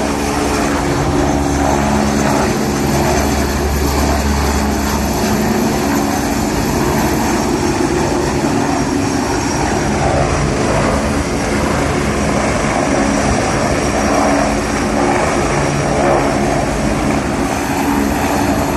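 Helicopter running loud and steady, its rotor and engine noise unbroken, with a low steady hum that drops away about five seconds in.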